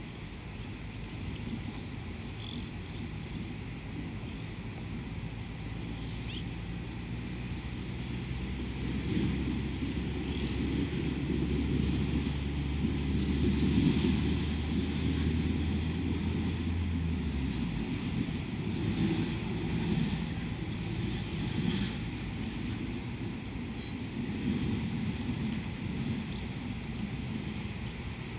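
Savanna ambience: a steady high-pitched insect drone, with low rumbling noise swelling through the middle and a low steady hum that cuts off about 17 seconds in.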